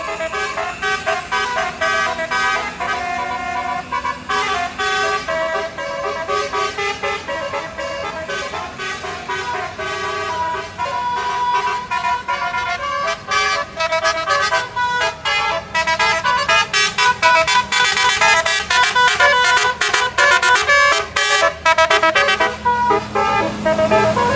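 A bus's Basuri telolet multi-tone horn playing melodic tunes, the notes changing every fraction of a second. It gets louder and plays faster, choppier toots in the second half.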